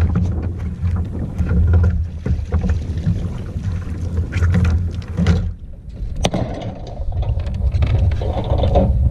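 Wind buffeting the microphone in a heavy, pulsing low rumble, broken by scattered sharp knocks and clicks. There is a brief lull about two-thirds of the way through, followed by a sharp knock.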